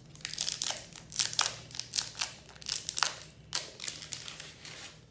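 Protective wrapping being peeled and crinkled off a new smartphone: a run of irregular crinkling and crackling.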